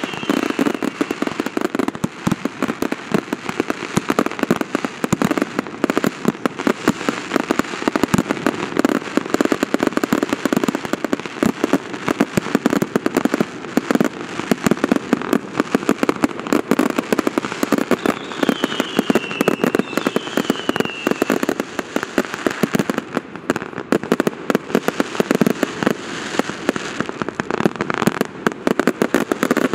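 Ground-launched fireworks going off in a rapid, dense crackle of pops and bangs. About two-thirds of the way through, two short falling whistles cut through the crackle.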